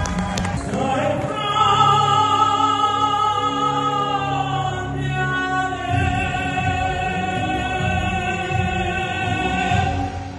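An operatic singing voice holds one long high note over musical accompaniment, the climax of a live song, and cuts off near the end.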